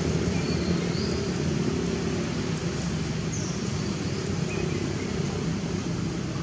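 Steady low rumble of outdoor background noise, with a few faint, brief high chirps.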